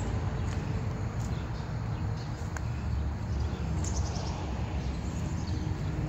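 Outdoor breeze heard as wind noise on the microphone, with a few short bird chirps scattered through.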